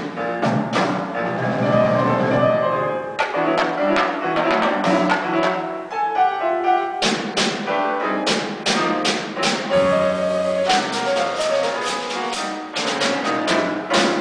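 Percussion ensemble playing a jazz piece: drum kit and cymbal strikes over pitched notes, in a busy rhythm.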